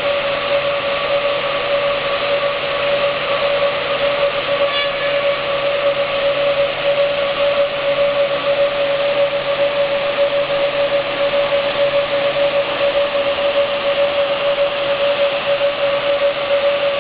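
Lih Woei LW-1200 automatic tenoning and drilling woodworking machine running steadily: a constant mid-pitched motor whine over a dense hiss, with a brief high blip about five seconds in.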